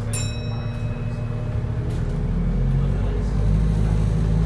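A single ding of the bus's stop-request bell just after the start, ringing briefly. Under it runs the steady drone of the Wright New Routemaster hybrid's diesel engine, which is driving the bus on its own with no battery assist. From about two seconds in the drone grows louder and rises a little in pitch as the engine works harder.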